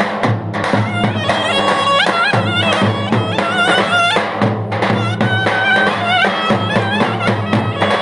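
Clarinet playing a fast, ornamented Turkish folk dance tune full of trills, over the steady beat of a davul bass drum.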